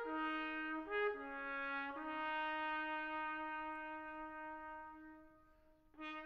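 Slow brass melody of a few held notes, the last one held for about three seconds and fading out; a new phrase begins near the end.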